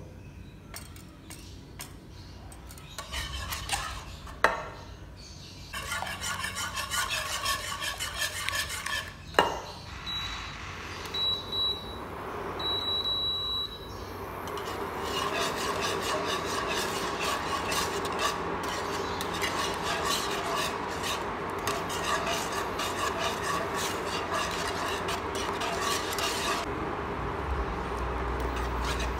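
Wire whisk beating a runny mix of coconut milk, palm sugar and egg yolks in a nonstick pan: quick scraping strokes of metal against the pan, with a couple of sharp knocks on the rim early on. About ten seconds in, three short electronic beeps as the electric cooktop is switched on, then steady, fast whisking over a faint even hum.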